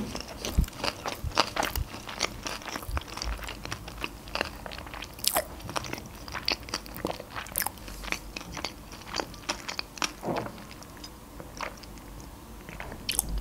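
A person chewing sushi rolls close to the microphone, with many short wet mouth clicks and smacks at an irregular rate. Near the end comes a sip of water from a glass.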